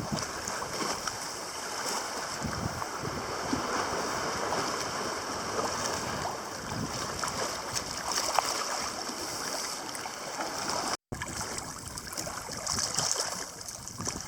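Sea water lapping and splashing against a kayak, with some wind on the microphone.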